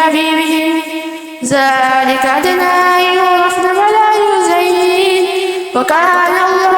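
Melodic Quran recitation: one voice chanting in long, drawn-out held notes, with a short pause for breath about a second and a half in and another brief break near the end.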